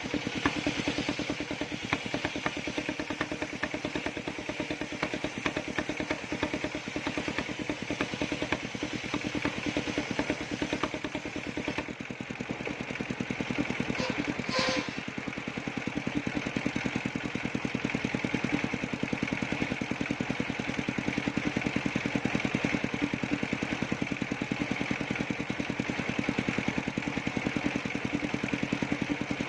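Engine of a circular sawmill running steadily at a constant speed, with a brief sharp sound about halfway through.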